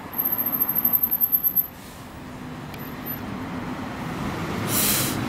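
Street traffic with a Scania diesel coach engine, an Irizar i6s, growing steadily louder as it approaches, and a car passing. A rapid rhythmic rustle fills the first second and a half, and a short hiss comes near the end.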